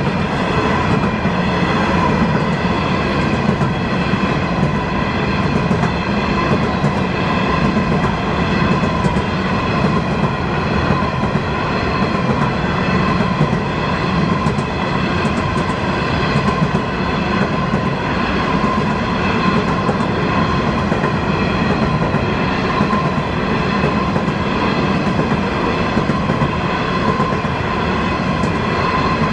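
Long freight train of hopper wagons rolling past close by: a steady, loud rumble of wheels on rail with a steady high-pitched tone over it.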